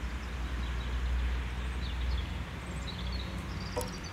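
Outdoor background: a steady low rumble under a light hiss, with small birds chirping faintly in the second half and a single sharp click near the end.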